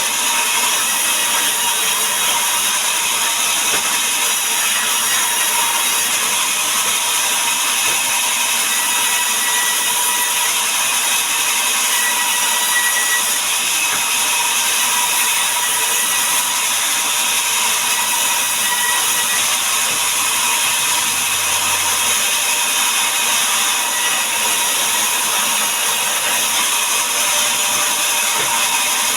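Power saw running steadily under load while cutting timber into boards.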